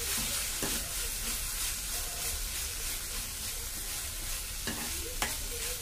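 Ginger-garlic paste frying with chopped tomatoes, onions and cashews in a pan: a steady sizzle, with a steel spatula stirring and scraping the mix around.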